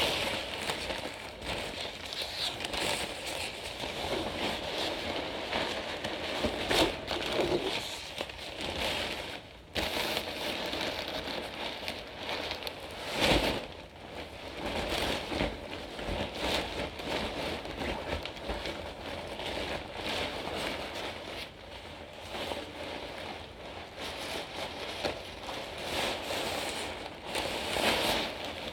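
Blue nylon fabric of a folded dog agility tunnel rustling and crinkling as it is squashed and stuffed back into its carry bag, a steady irregular rustle with a couple of louder swishes about seven and thirteen seconds in.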